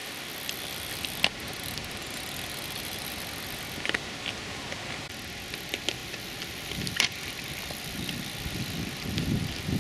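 A cyclocross bicycle ridden and carried across grass: a steady outdoor hiss with a few sharp clicks and rattles from the bike, and some low thuds near the end as it is carried over the barriers.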